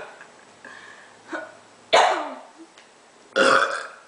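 A person burping loudly on purpose, a forced burp about two seconds in whose pitch falls as it trails off, followed by a second loud burst about three and a half seconds in.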